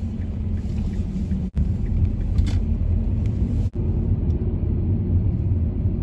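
Steady low road and engine rumble inside a moving car's cabin, broken by two brief drops about one and a half and three and a half seconds in.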